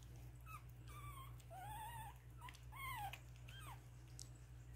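Three-week-old Pomeranian puppies squeaking and whimpering faintly as they play-wrestle: about six short, high-pitched squeaks, each rising and falling in pitch, spread over the first four seconds.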